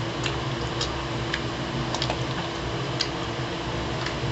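Chewing a mouthful of burrito close to the microphone: a handful of wet smacks and clicks at irregular moments, over a steady low hum.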